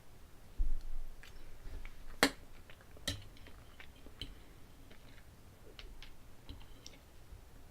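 A person chewing food close to the microphone, with small wet mouth clicks and a few sharper clicks like cutlery on a plate. There is a low thump about half a second in, and a sharp click a little after two seconds.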